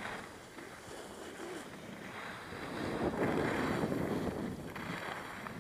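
Skis sliding and scraping over groomed snow while skiing downhill, mixed with wind rushing over the microphone; the noise swells louder about three seconds in as the skier turns.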